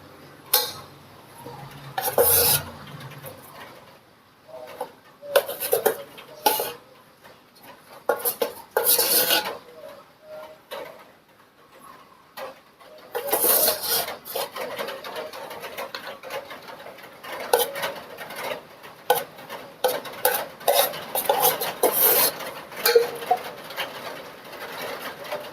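Kitchen utensils and dishware clinking and scraping as cut pear pieces are put into a container of strained ginger water. The clinks and scrapes are irregular, with several louder clatters.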